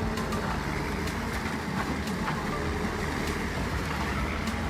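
Industrial wood shredder running under load: a steady engine and rotor drone, with irregular sharp knocks and cracks from wood being broken up.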